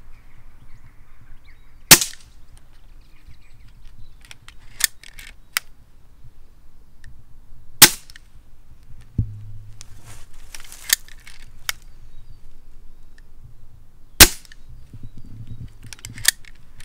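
Three shots from a Snowpeak PP750 PCP air pistol carbine, sharp cracks about six seconds apart. Between shots come smaller metallic clicks as the side lever is cycled to load the next pellet from the magazine.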